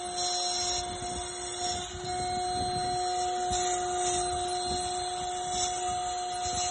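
CNC router spindle running with a steady whine while its cutter carves into a wooden tube turning on the rotary axis, with irregular cutting noise beneath.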